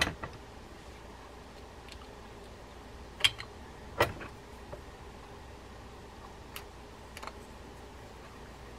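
Light clicks and taps of a small screw and screwdriver handled against the metal parts of a Shimano TLD 20 fishing reel's spool assembly as the second side-plate screw is set in. A few sharp clicks stand out, one at the start and two close together about three and four seconds in, with fainter ticks later.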